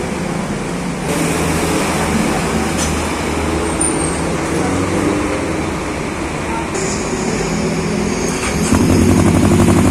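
Motorcycle engine running at idle, a steady low hum that steps up louder with a quick pulsing beat near the end, with an aftermarket slip-on muffler on the exhaust.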